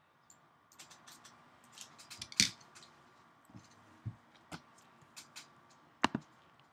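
Scattered light clicks and taps with faint rustling, from a sealed card box being picked up and handled on a table. The loudest knock comes about two and a half seconds in, with a sharp click near the end.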